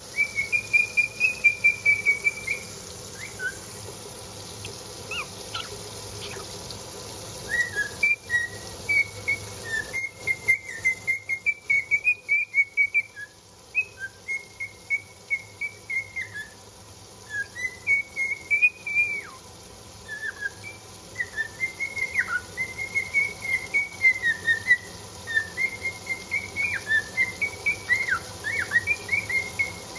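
Cockatiel whistling a tune: strings of quick, bouncing high whistled notes, in several phrases with short pauses between them.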